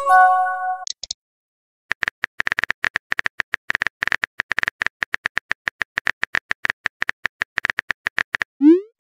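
Chat-app sound effects: a short chime of several held tones as a message comes in, then after a brief silence a long run of rapid keyboard-typing clicks from about two seconds in. Near the end comes a short rising whoosh of a message being sent.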